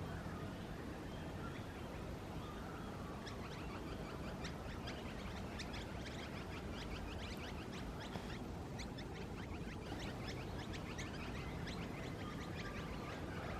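Birds singing in an early-morning garden: many quick, high chirps and twitters overlapping, thickest from about three seconds in until near the end, over a steady low background noise.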